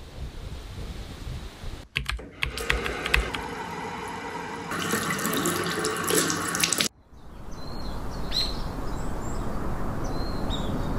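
Running water, in three short stretches that each cut in and out abruptly, the middle one with a run of sharp clicks.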